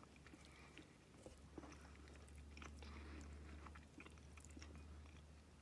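Faint eating sounds: a white plastic spoon scooping and scraping tuna bean pasta in a plastic compartment tray, with quiet chewing, as small scattered clicks over a low steady hum.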